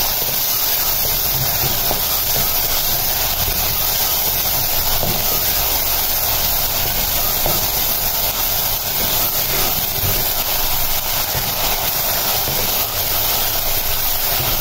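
Sliced onions and ginger-garlic paste sizzling steadily in hot mustard oil in a metal pot, stirred now and then with a wooden spoon.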